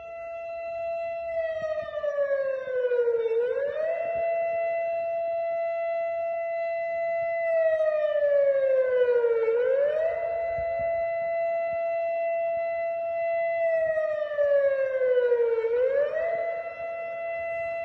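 Civil-defence warning siren of a public alarm system sounding on test. It holds one steady high tone for about six seconds, sweeps down over about two seconds and snaps quickly back up, three times over.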